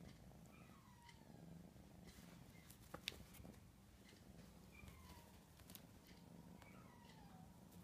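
Faint mewing of a Neva Masquerade kitten: about three short calls, each falling in pitch, over a low steady hum, with a sharp click about three seconds in.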